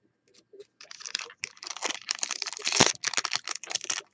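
Foil wrapper of a baseball card pack crinkling as it is torn open and handled, a dense crackle that starts about a second in.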